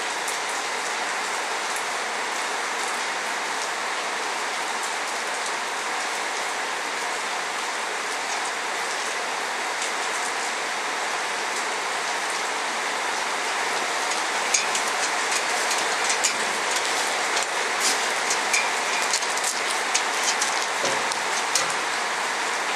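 Rain falling steadily, an even hiss, with sharper ticks and taps of drops joining in over the second half.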